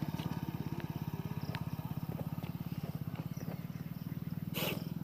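Engine idling steadily with a fast, even pulse. A brief burst of hiss comes near the end.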